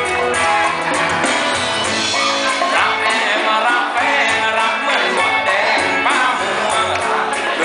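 Live band playing loudly, with a lead vocalist singing over electric guitar, drums and hand percussion.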